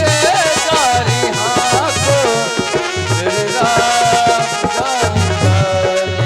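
Instrumental interlude of devotional kirtan music: an ornamented lead melody sliding between notes over a steady, repeating drum beat.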